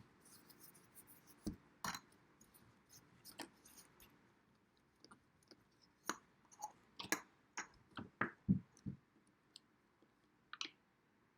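Quiet handling: scattered light clicks and taps as small Play-Doh pieces are picked up and pressed back together on a tabletop, with several in quick succession about halfway through.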